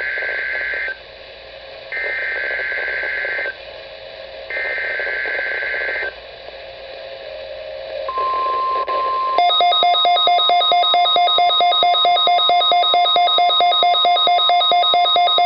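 NOAA Weather Radio alert signalling: three roughly 1.5-second bursts of warbling SAME digital header data, then the steady 1050 Hz warning alarm tone. About nine seconds in, the receiver's alarm joins in with a rapid electronic beeping of several tones at once, about six or seven beeps a second.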